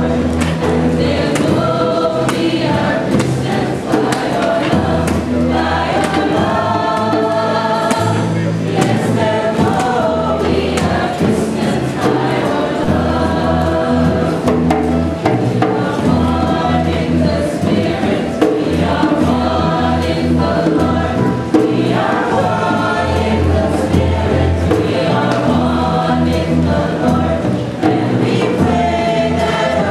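A choir of many voices singing a song.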